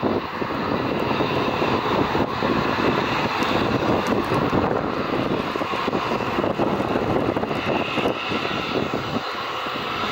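Airbus A380's four jet engines at takeoff thrust as the airliner lifts off and climbs away: a steady, dense rumble.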